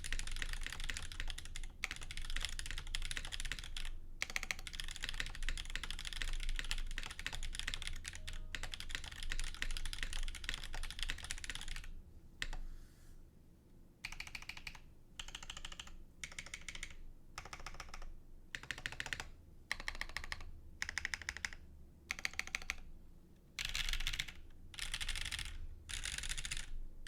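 Fast typing on a KBD8x MKII mechanical keyboard with lubed Moyu Black switches, an FR4 full plate and GMK keycaps: loud and clacky. It is steady and continuous for the first half, then comes in short bursts separated by brief pauses.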